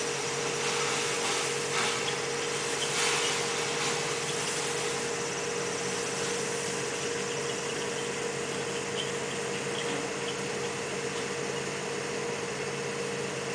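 Steady drone of a running motor at a septic tank repair, with a constant mid-pitched whine over it and a couple of faint knocks about two and three seconds in.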